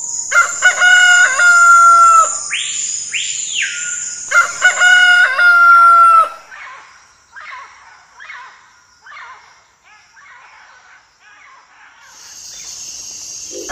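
Rooster crowing twice, each crow a few short notes ending in one long held note, over a steady high-pitched whine. After the crows comes a run of about seven shorter, softer calls a little under a second apart.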